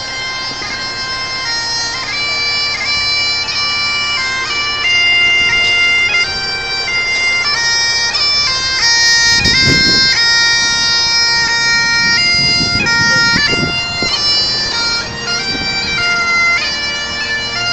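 Bagpipes playing a tune: held melody notes stepping up and down over a steady drone.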